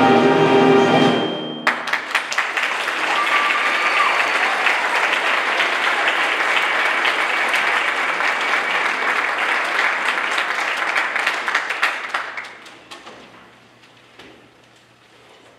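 School symphonic band holding a final chord that cuts off about a second and a half in, followed by audience applause that dies away near the end.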